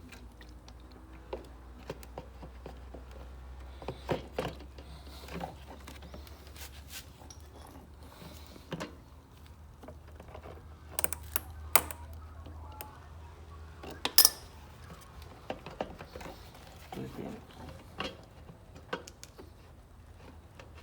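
Scattered clicks, taps and clinks of hand tools and small metal and plastic parts being handled while a Briggs and Stratton mower's carburettor and fuel line are refitted. A few sharper knocks stand out around the middle, over a faint steady low hum.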